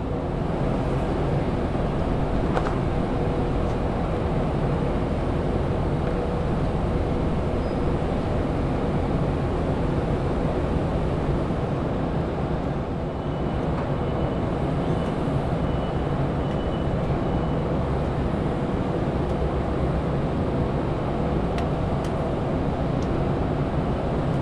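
The berthed ferry Ogasawara Maru's engines running, a steady low mechanical drone with a constant hum.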